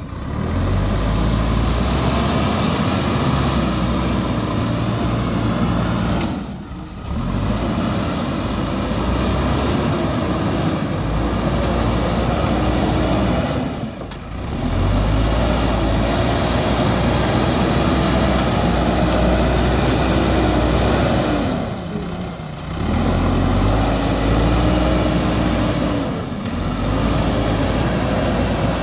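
JCB backhoe loader's diesel engine running under load, its pitch rising and falling as it works. The sound drops away briefly four times.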